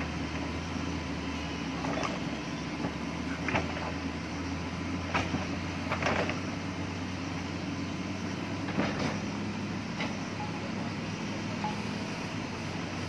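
Mahindra backhoe loader's diesel engine running steadily as the backhoe arm digs, with a handful of sharp metal clanks from the arm and bucket working the soil.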